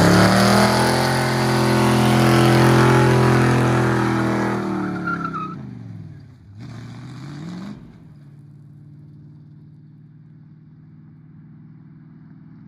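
An engine revving loudly, its pitch falling away over about six seconds. A short rev rises again about seven seconds in, then the engine settles to a quieter, steady idle.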